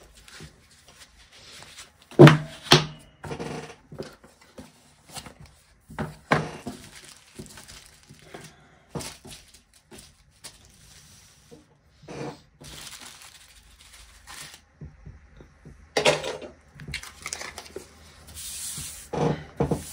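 Small resin diamond-painting drills and their little plastic bags being handled on a wooden table: bags crinkling and tearing, drills scattering and clicking, and a few sharper knocks.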